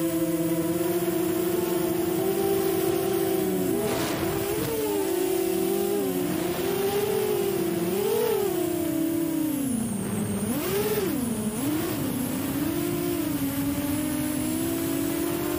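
A drone's electric motors and propellers whining steadily, the pitch rising and falling as the throttle changes, with deeper swoops about four and ten seconds in.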